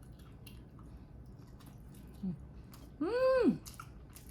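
Chewing with small mouth and utensil clicks, and about three seconds in a woman's short high hum, rising then falling in pitch, the loudest sound.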